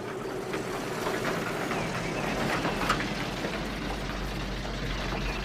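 A motor vehicle driving, its engine running steadily under road noise, with scattered small rattles and one sharper click a little before the middle.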